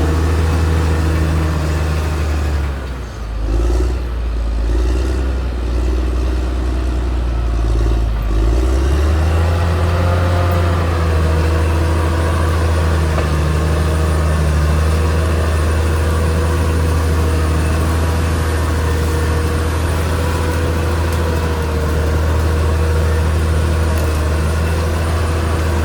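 Caterpillar D6R XL bulldozer's diesel engine running steadily. Its note drops about three seconds in and climbs back to a steady higher pitch at about nine seconds, as the engine loads and revs back up.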